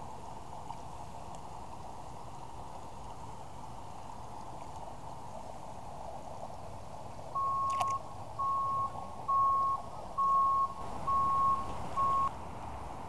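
A vehicle's reversing alarm beeping six times, about once a second, in one steady tone over a constant background rush.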